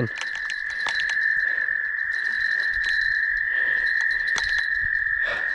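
Night chorus of frogs: a steady, high trilling drone, with scattered light clicks over it.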